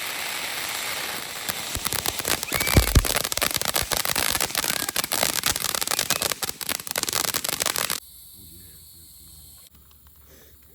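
Ground firework going off: a hiss, then a dense run of rapid crackling pops for about six seconds, with a heavier bang about three seconds in. It cuts off suddenly near the end, leaving only faint background.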